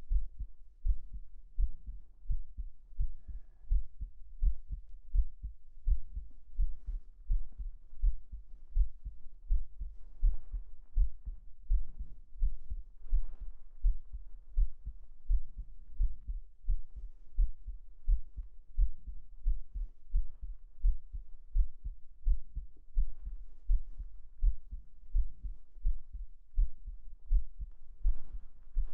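Human heartbeat heard close up: a steady, even lub-dub about once a second. Soft rustles of bedding fabric come and go faintly over it.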